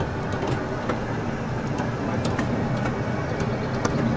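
Safari ride train running steadily with a low rumble, with a few light clicks and rattles.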